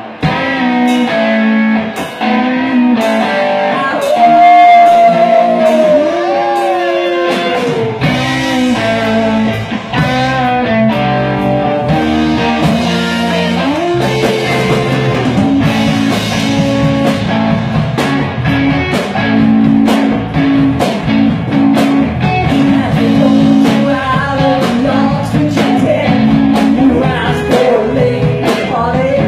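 Live rock band playing: electric guitars and drums with a lead singer, the bass coming in about eight seconds in.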